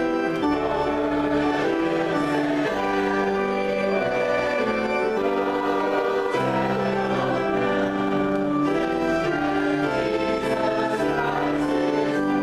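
Church organ playing a slow piece in sustained, held chords that change every second or so.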